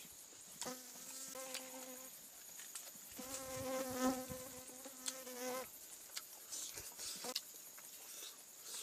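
A flying insect, a fly or bee, buzzing in two passes: a steady hum of about a second and a half, then a longer one of about two and a half seconds. Under it runs a faint steady high whine, with scattered soft clicks.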